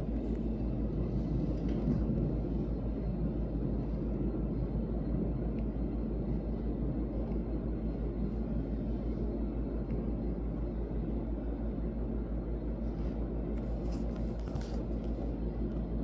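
Steady low rumble that stays level throughout, with a couple of faint brief hisses near the end.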